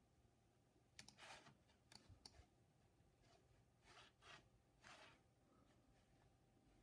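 Near silence with a few faint, scattered clicks from a computer mouse, in pairs about 1, 2 and 4 seconds in.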